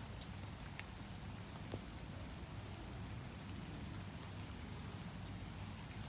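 Steady rain falling, with scattered raindrops tapping close by.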